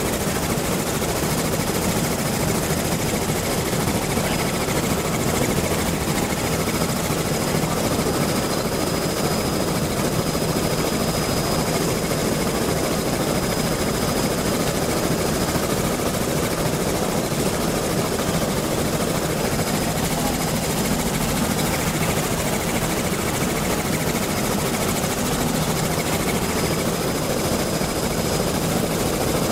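Helicopter in flight: steady, unbroken engine and rotor noise, with a faint high whine that fades out about halfway through.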